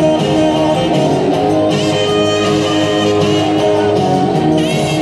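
Loud guitar-led music with no singing, with two short rising slides in the upper part, about two seconds in and near the end.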